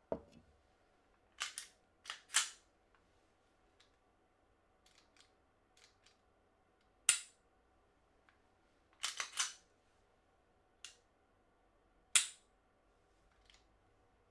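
Airsoft Daniel Defense H9 pistol firing, a series of sharp cracks and clacks at irregular intervals, some in quick pairs or short strings.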